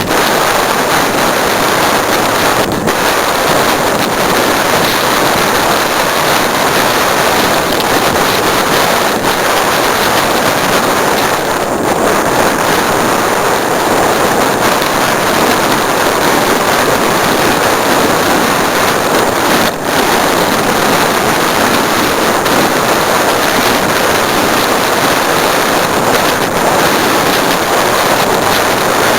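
Loud, steady wind rush on the microphone of a camera riding along on a mountain bike, mixed with the noise of the bike rolling over the trail, with a few faint knocks.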